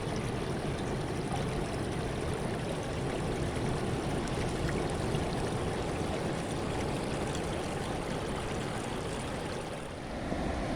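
Sea water washing and rushing steadily, the continuous sound of waves.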